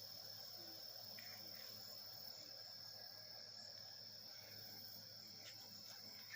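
Near silence, turned up loud: a steady high-pitched ring and a low hum, with a few faint ticks.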